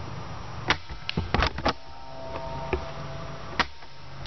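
Several sharp, irregularly spaced clicks and knocks, bunched between about one and two seconds in, with a single loud one near the end, over a steady low hum.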